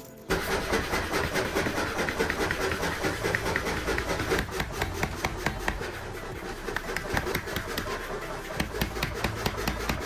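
A motor-driven tool starts suddenly and runs with a steady low hum under a rough, crackling rasp, like steel being worked on a power tool.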